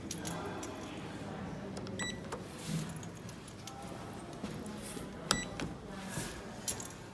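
Busy indoor public-area ambience: a low murmur of background voices and scattered clicks and footsteps, with two short electronic beeps about three seconds apart.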